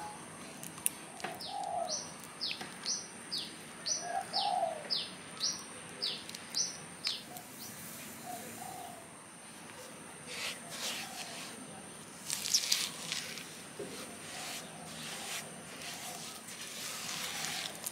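A bird calling a quick run of about a dozen short falling chirps, with a few low coos underneath. In the second half, a spatula scrapes and mixes sugar into butter in a glass bowl, in rasping strokes that are the loudest sound here.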